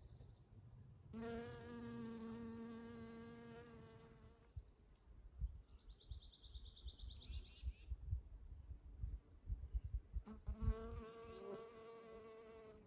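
Honey bee buzzing close by: a steady hum for about three seconds, then again near the end. In between, a bird gives one short, high, rapid trill.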